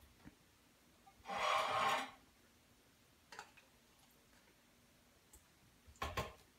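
Kitchen utensils and food being handled on a counter: a brief rustling scrape about a second in, then a single click, and two sharp knocks near the end.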